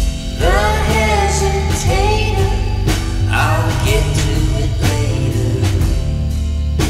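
Background song: a singing voice over a band with a steady beat.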